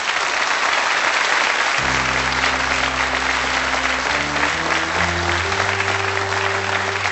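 Studio audience applauding. About two seconds in, sustained musical chords come in under the applause and move through several changes of pitch.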